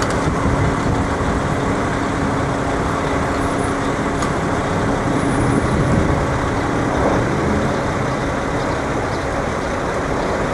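City street traffic: a steady wash of passing road vehicles, with a steady engine hum through the first half that then fades.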